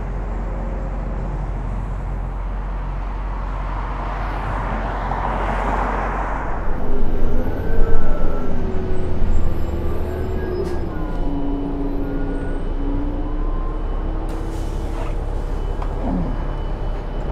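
City bus running: a steady low engine rumble with a whine that rises and falls in pitch as it drives, a rush of air hiss about five seconds in, and a few clicks and knocks near the end.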